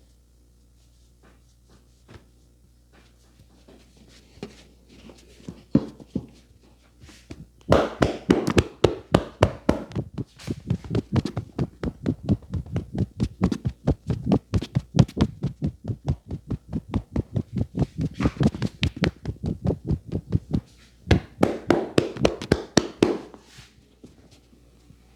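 Hands striking in a fast percussive massage, a steady run of sharp slaps or chops at about four or five a second, with a short break partway through. A few light taps come before the run starts.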